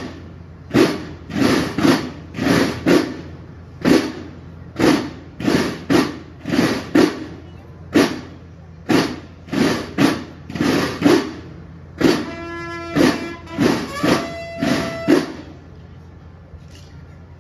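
Drums of a drum-and-bugle band beating a steady march, about one to two strokes a second. About twelve seconds in, a bugle call of several held notes joins, ending about three seconds later.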